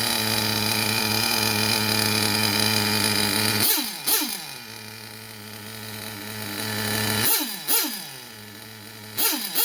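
Small two-stroke nitro engine of a Traxxas T-Maxx RC truck breathing through a bottom-bleed tuned pipe: a steady high-pitched run for a few seconds, then three quick pairs of throttle blips, the revs sweeping back down after each.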